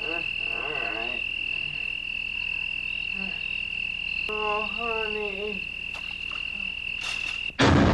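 A steady high insect drone, with two croaking calls a few seconds apart. Loud music cuts in suddenly near the end.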